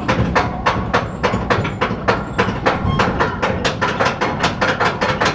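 Roller coaster chain lift hauling the car up a near-vertical lift hill: rapid, even clicking, about five clicks a second, over a steady mechanical hum from the lift.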